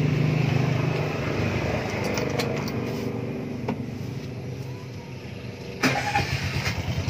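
TVS King auto-rickshaw's single-cylinder engine running with a steady low throb that eases off over the first few seconds, with a few faint clicks. Near the end it jumps suddenly louder into a fast, even pulsing.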